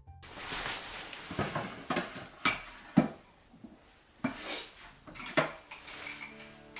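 Small hard household objects knocking and clinking as they are handled and moved about in a small cabinet, with about half a dozen sharp knocks spread over several seconds.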